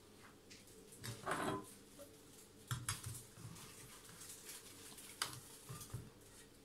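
Faint kitchen handling sounds: a glass baking dish set down with a few light knocks and clinks, and the string-tied pork loin lifted and moved into it with soft rustles.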